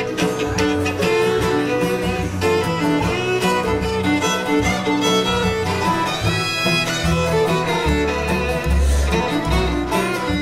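Bluegrass band playing an instrumental break, with fiddle carrying the melody over picked guitar.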